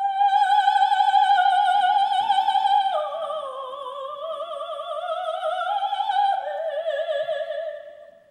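A solo soprano sings long, high held notes with wide vibrato, with almost no accompaniment audible. The first note is held about three seconds, then the line drops and climbs slowly. The last note drops again and fades out near the end.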